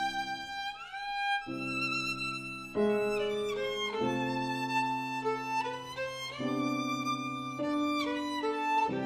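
Background music: a violin melody of slow, held notes with a rising slide about a second in, over held low notes.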